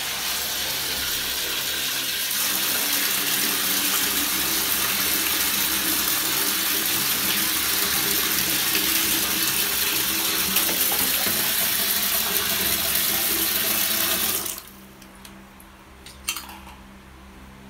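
Water pouring into a plastic bucket, a steady rush that stops abruptly about fourteen seconds in.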